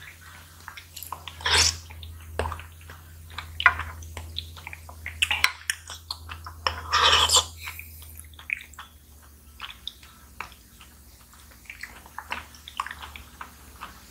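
Wet slurping and squishing mouth sounds of eating soft jelly pudding off a plastic spoon, with many small wet clicks and two louder slurps, about a second and a half in and again around seven seconds in. A plastic spoon lightly taps against a glass dish.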